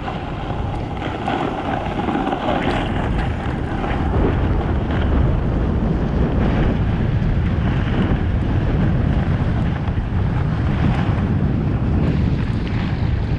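Wind buffeting the microphone of a camera carried downhill on skis, a steady rumble with a hiss over it, mixed with the skis scraping and hissing over groomed snow.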